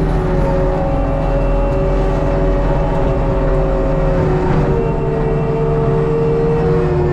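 ASV RT120 track loader's diesel engine working hard, with the steady whine of the hydraulically driven Fecon Blackhawk forestry mulcher head spinning and grinding brush. The whine dips slightly in pitch about four seconds in.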